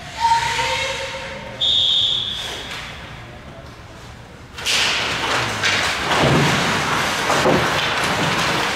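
Ice hockey rink sound: a loud thud with a brief ringing tone just after the start, a short high whistle blast about two seconds in, and from about five seconds a steady noisy rush of play on the ice with a few low knocks.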